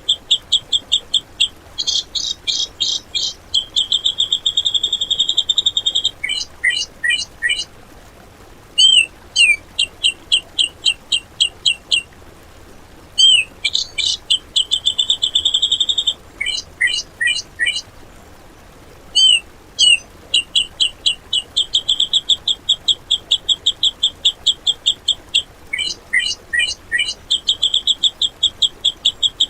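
Songbird training recording: rapid runs of sharp, repeated chirps and trills at an even pace, broken by short pauses. The same phrases come back almost identically about every ten seconds, as in an edited, looped track.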